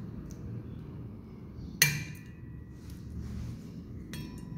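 A metal spoon clinking against a bowl about two seconds in, ringing briefly, with a lighter clink near the end, over quiet room noise.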